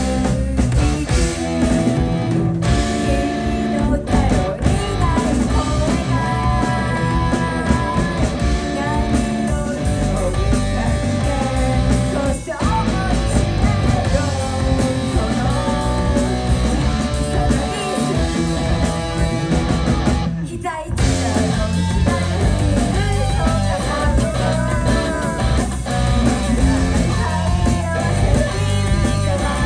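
Live rock band playing loudly: electric guitar, drums and singing, with two brief breaks in the sound.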